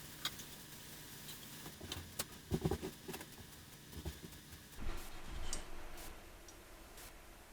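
Pot of burrito filling (shredded roast beef with minute rice) simmering, giving faint, irregular pops and ticks of bubbling, with a soft hiss rising about five seconds in.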